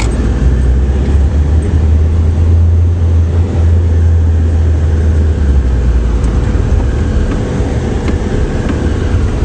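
Road noise inside a moving car's cabin: a steady rumble of engine and tyres, with a deep low drone that swells for a few seconds in the middle, and a faint steady hum.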